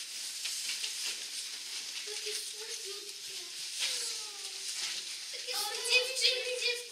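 Indistinct children's voices, a few short falling calls and then a longer held one near the end, over a steady hiss.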